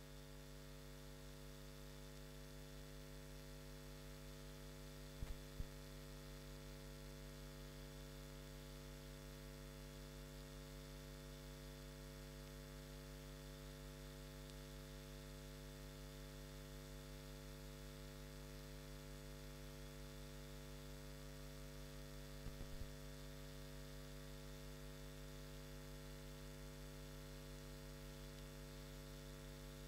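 Steady electrical mains hum, a low buzz with its overtones, from the stage's PA system, with two faint brief clicks, one about five seconds in and one about twenty-two seconds in.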